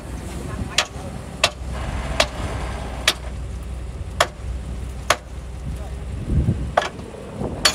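Diesel engine of heavy road-construction machinery running steadily with a low rumble, crossed by sharp clicks or knocks about once a second at uneven spacing, and a brief low thump near the end.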